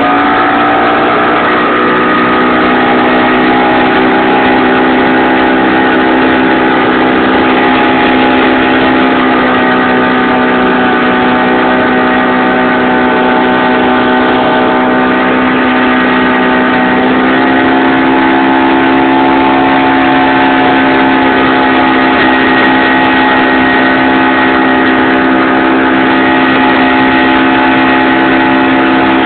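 6 hp Hangkai single-cylinder outboard motor running under way at steady throttle, under a heavy load. Its pitch climbs briefly at the start, then holds steady.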